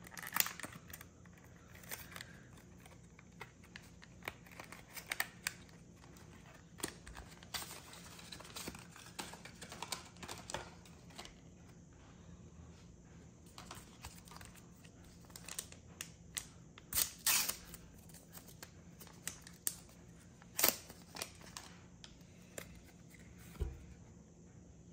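Pokémon trading cards being handled and flicked through one by one: short crisp snaps and rustles of card stock, over a faint steady hum.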